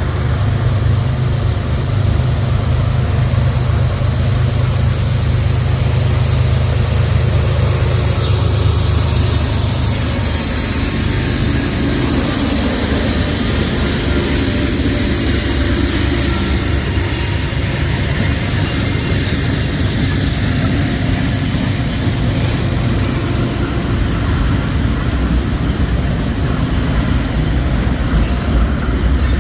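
A freight train passing close by. Diesel locomotive engines hum low and steady for the first ten seconds or so, then fade under the rolling rumble of freight cars, whose wheels squeal high on the rails.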